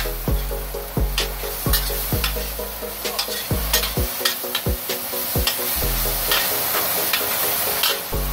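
A metal spatula scraping and stirring food around a stainless steel wok, with short sharp scrapes at uneven intervals over a light sizzle of frying. Background music with a steady deep bass beat plays throughout.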